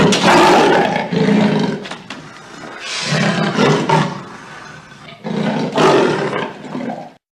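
Tiger roaring three times, each roar lasting about one and a half to two seconds with short pauses between.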